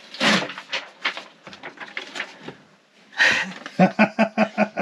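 Soft rustling and handling as a picture is taken off a plastic shower wall, then a woman laughing in a quick run of short bursts near the end.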